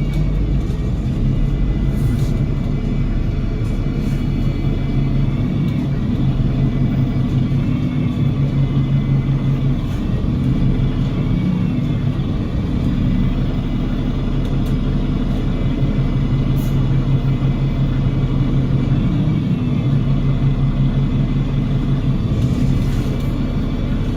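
Cummins L9 six-cylinder diesel of an Enviro500 MMC double-decker bus with a Voith DIWA automatic gearbox, running with a steady low drone and thin high-pitched whines above it.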